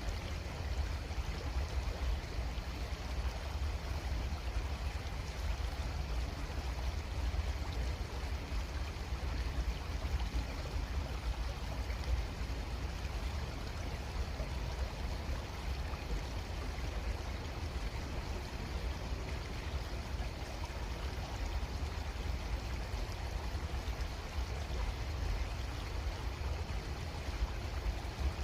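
Creek water running steadily, an even rushing noise with a strong low rumble underneath.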